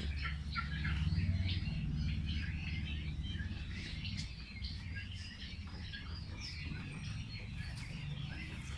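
Farm birds chirping: many short, overlapping calls throughout, over a steady low hum.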